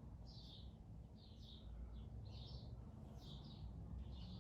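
A bird chirping faintly over and over, a short call about once a second, above a faint low rumble.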